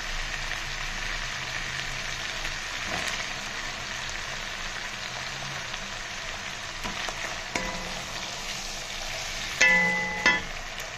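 Potato batons frying in hot oil with onions and ginger-garlic paste, a steady sizzle. A few light taps, then two louder knocks with a short ring near the end.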